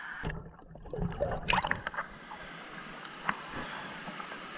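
Creek water splashing and bubbling around a waterproof action camera at the surface. The sound goes muffled for about a second as the camera dips under, then a burst of splashes as it comes up, followed by water lapping at the housing with a few drips.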